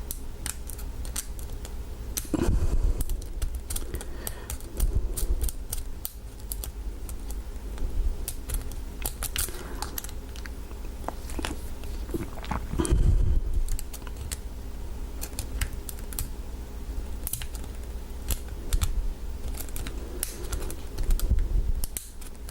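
Steel lock pick and tension wrench working the pin tumblers inside an American 1100 padlock during single-pin picking: a run of small, irregular metal clicks and scrapes, with a few dull knocks from handling the lock.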